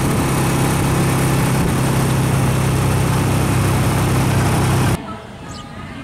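Engine of a moving vehicle running at a steady speed, a constant hum with wind and road noise over it. It cuts off suddenly about five seconds in.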